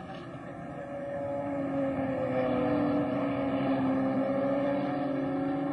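A racing car engine running at high revs with a steady note. It grows louder over the first couple of seconds as the car approaches, then holds.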